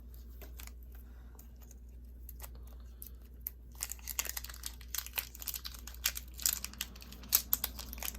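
Wrapper of a 1992 Topps Stadium Club card pack crinkling and tearing as it is worked open, its seal stuck fast. The crackles are sparse at first and come thicker from about halfway through.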